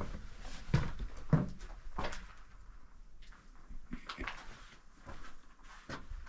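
Footsteps and scuffs on a gritty stone floor inside a small stone chamber, with a few louder scrapes in the first two seconds, then quieter shuffling.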